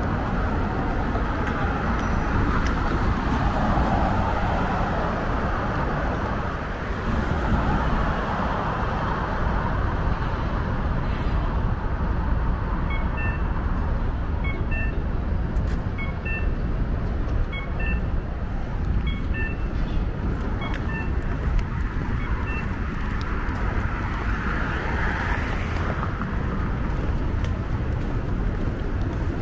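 Road traffic noise on a city street: a steady low rumble of passing and idling cars. For about ten seconds in the middle, a short high electronic beep repeats roughly once a second.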